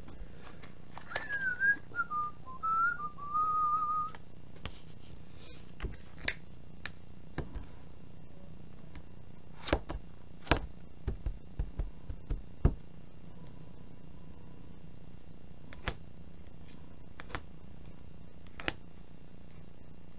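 A person whistling a few wavering notes for about three seconds, then scattered sharp clicks and knocks, over a low steady hum.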